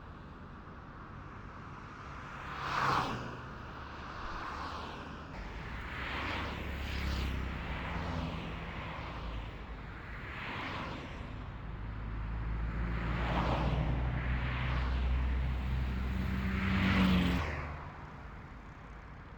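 Road traffic passing on a highway: about six vehicles go by one after another, each swelling and fading. The loudest passes come about 3 s and 17 s in, and a low engine rumble holds through the middle.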